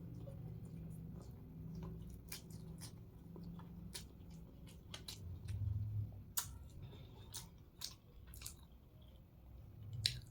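Close-miked eating sounds of a person chewing hakka noodles, with many short, sharp mouth clicks and smacks spread irregularly through the chewing.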